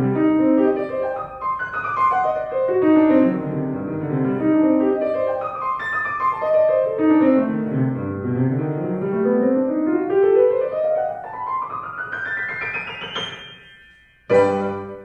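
Piano playing fast falling runs of notes over and over, then one long rising run up the keyboard that thins out. A loud chord is struck near the end.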